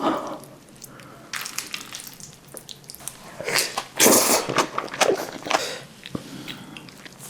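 Close-miked eating sounds: scattered small clicks and wet mouth noises, with a louder burst about four seconds in.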